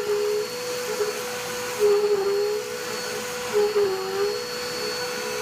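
Vacuum cleaner running steadily, a constant hum with a high whine over it, one of its tones wavering and dipping in pitch a few times.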